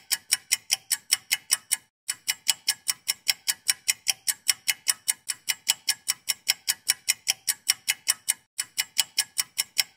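Rapid, steady clock-like ticking, about five crisp ticks a second. It breaks off twice for a moment and starts again.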